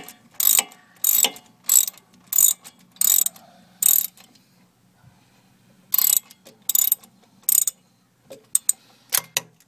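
Socket ratchet on an extension backing out a brake caliper bracket bolt: a burst of pawl clicking on each return swing of the handle, about three every two seconds, then a pause and three more swings, and a few short quick clicks near the end as the bolt loosens.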